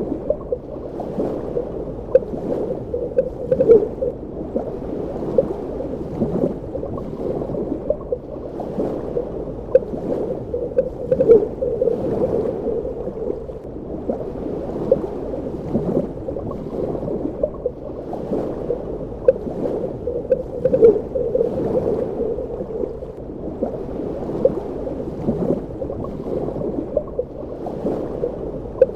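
Underwater ambience: a steady, muffled water rush with frequent irregular bubbling pops and gurgles.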